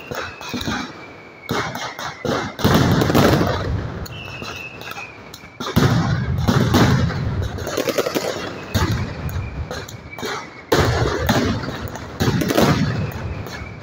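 Mascletà firecrackers: rapid, dense strings of bangs that swell into loud waves about two and a half, six, eleven and twelve seconds in. A high whistle falls slowly in pitch a few seconds in.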